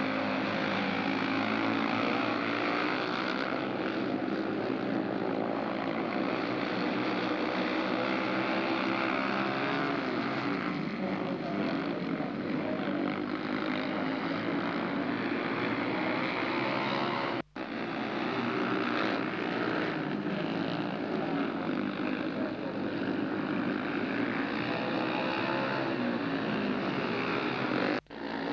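Speedway motorcycles' 500 cc single-cylinder engines racing together round the track, a loud, steady, blaring drone whose pitch rises and falls. The sound cuts out abruptly for an instant about two-thirds of the way in and again near the end.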